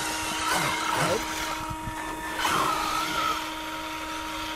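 Brushless electric RC cars driving on sand, their motors whining in sweeps that rise and fall in pitch as they speed up and slow down, twice: about half a second in and again about two and a half seconds in. A steady tone runs underneath.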